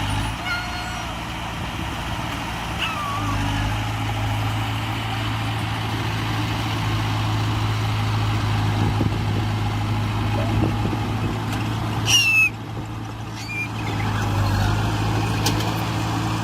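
Heavy diesel engine running steadily at a low idle. About twelve seconds in there is a short loud hiss with a high squeal.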